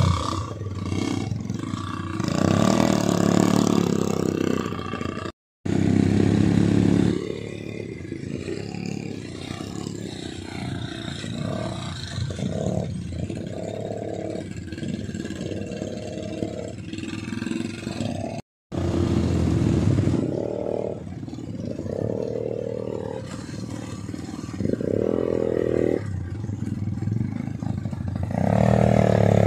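Rental ATV (quad bike) engines running and revving on a dirt track, surging louder and easing off several times, with two brief dropouts.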